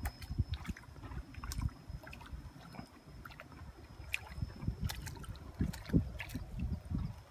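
Hooked tilapia splashing and thrashing at the water's surface as it is dragged up through waterside plants, with irregular knocks and rustling of leaves and stems.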